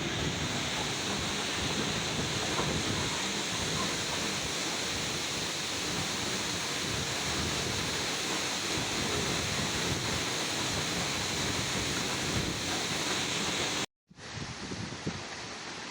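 Steady rushing of a waterfall. About 14 s in it cuts out abruptly, and a quieter, uneven rustling follows.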